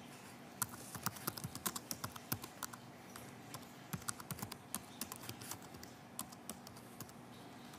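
Typing on a computer keyboard: quick, irregular keystrokes with a few short pauses.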